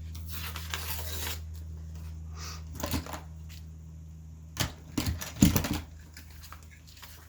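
Paper rustling and crinkling, then a few sharp clacks and knocks, loudest a little past halfway, as a thumb hole is made in a journal page.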